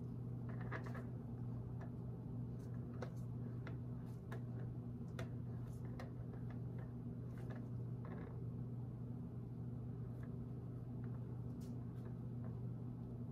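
Steady low electrical hum, with scattered faint clicks and taps from a piping bag and a cake turntable being handled as frosting is piped.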